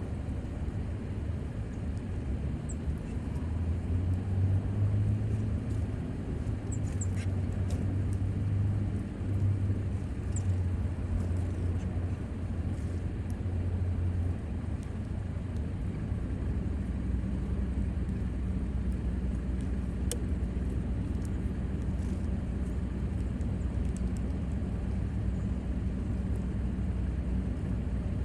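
Steady low motor rumble, its hum shifting to a slightly different, lower pitch about halfway through, with a few faint short high chirps now and then.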